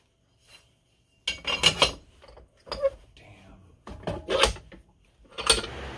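A steel angle-iron bracket clanking against a cast-iron bench vise as it is set in and clamped: several sharp metal-on-metal knocks with short pauses between.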